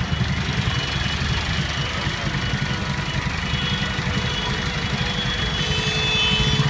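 Diesel farm tractor engines running steadily, a low, rapid pulsing rumble.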